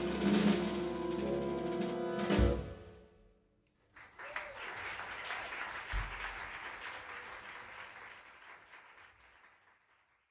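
Jazz big band holding its final chord, with saxophones, trumpets, trombones and drum kit, cut off by a last drum hit about two and a half seconds in. After a brief pause, the audience applauds, fading out, with one dull thump about six seconds in.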